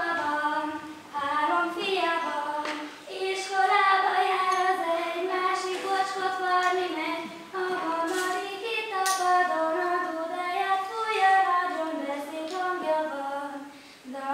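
A girl singing a slow melody alone, without accompaniment, in long held notes with short breaths between phrases.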